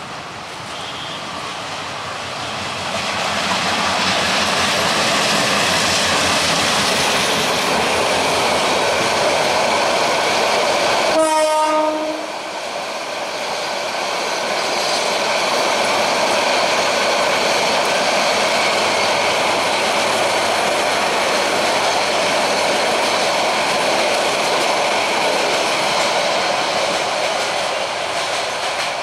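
Diesel-hauled intercity passenger train of PT INKA-built coaches passing close by: steady wheel and rail noise that builds over the first few seconds and then holds. A short horn note sounds about eleven seconds in.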